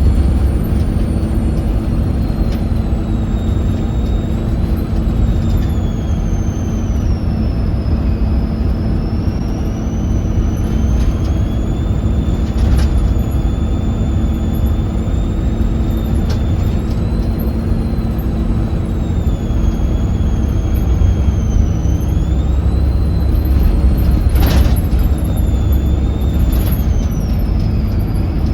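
Volvo B7RLE bus's six-cylinder diesel engine running on the move: a deep engine rumble with a high turbo whistle that rises and falls in pitch as the engine speed changes. The turbo is a whistly one. A few short knocks or rattles come through, the loudest about 24 seconds in.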